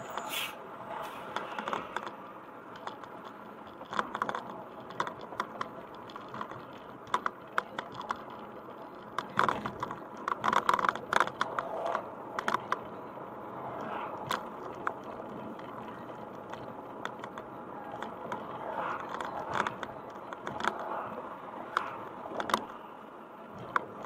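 Steady road and engine noise heard from inside a moving car, with many small clicks and rattles over it, thickest from about ten to twelve seconds in, as things in the cabin shake over the road surface.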